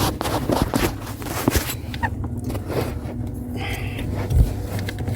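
Scattered clicks and knocks of metal parts being handled and fitted on a clutch pedal assembly, with one heavier knock near the end, over a steady low hum.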